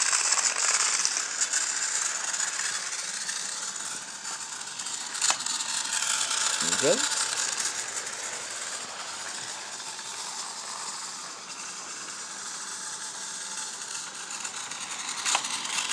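Battery-powered TrackMaster Thomas toy engine running along plastic track, its motor and gears whirring and rattling steadily. The sound grows quieter about halfway through, and a single click is heard about five seconds in.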